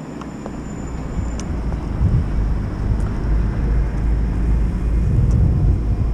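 Wind rumbling over a moving action camera's microphone, growing louder over the first two seconds and staying strong, with a few faint clicks.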